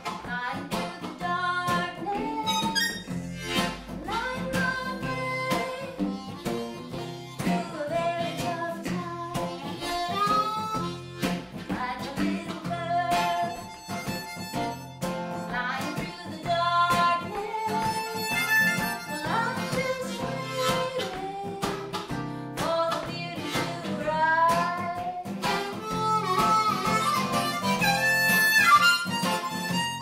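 Harmonica played lead, its notes bending and sliding, over strummed acoustic guitar and electric guitar.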